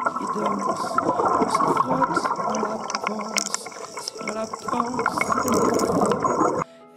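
Closing bars of a song on the soundtrack: held musical tones under a dense crackling noise, cut off abruptly near the end.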